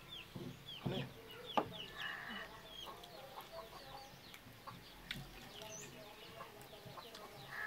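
Domestic chickens clucking, with many short, high falling calls scattered through. Close eating sounds from fingers mixing rice and from chewing, with a few sharp clicks.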